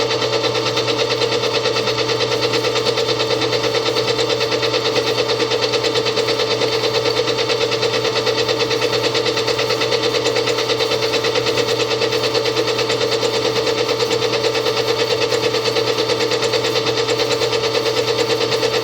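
Electric stand mixer running steadily on its third speed setting: a constant motor whine with a fast, even ripple. It reads about 71 dB on an A-weighted sound meter at 18 inches.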